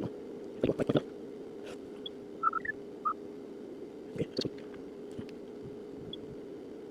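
Small clicks and crackles of plastic and metal as the charging-port board of a smartphone is pried loose, in two short clusters, about a second in and again near four seconds, over a steady low hum.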